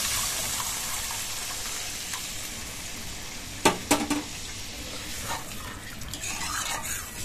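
Hot water poured into a kadai of fried spice paste, sizzling as it hits the hot oil and fading over the first few seconds. A metal spatula then knocks twice against the pan and scrapes as it stirs the gravy near the end.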